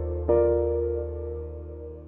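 Background music: a soft piano chord struck just after the start over a held bass note, left to fade away.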